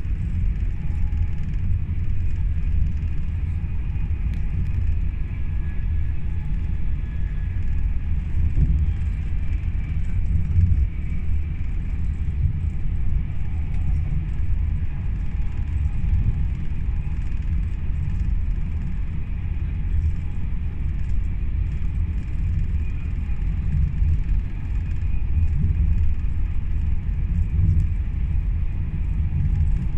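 Cabin running noise of a Class 390 Pendolino electric train at speed: a steady low rumble from the wheels on the rails and the passing air, with a faint high hum above it.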